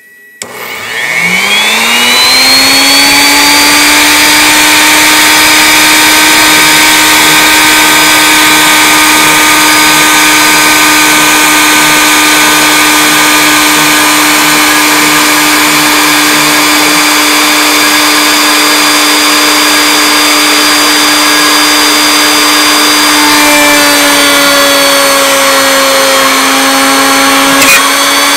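Router motor on a CNC machine spinning up, its whine rising in pitch over about two seconds, then running steady and loud as its quarter-inch flat bit cuts into pine. About 23 seconds in the pitch dips slightly as the load changes, and there is a short click near the end.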